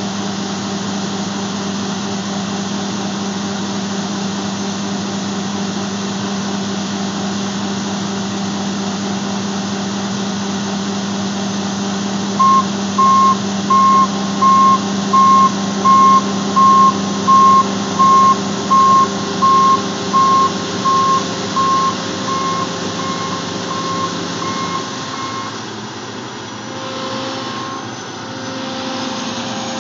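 Combine harvester running with a steady, loud drone. About halfway through, a backup alarm starts beeping about one and a half times a second and grows fainter over some ten seconds. Near the end the machine's drone drops and changes.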